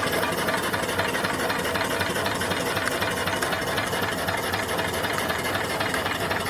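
Small steam engine running steadily off its boiler, a fast, even mechanical rhythm at a constant level.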